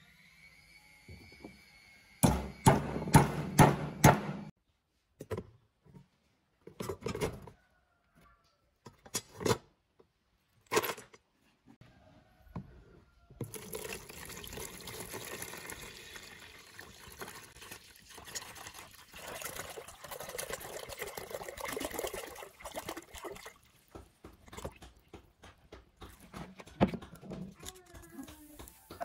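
Rusty metal lamp parts being worked on a wooden block: a quick run of sharp metal knocks, then a few single knocks. Liquid is then poured steadily into a plastic tub over the parts for about ten seconds, followed by brush scrubbing and splashing in the liquid near the end.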